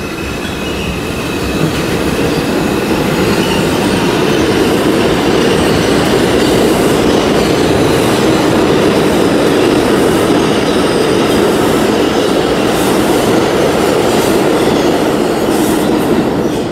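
New York City subway train running past along the tracks: a loud steady rumble of wheels on rail that builds over the first couple of seconds, holds, then drops away suddenly near the end as the train clears.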